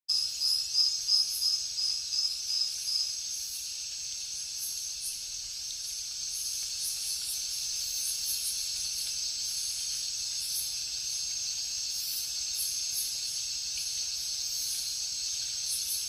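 Insects chirring in a steady, high-pitched chorus. For the first three seconds one insect chirps in quick regular pulses, about four a second, louder than the rest.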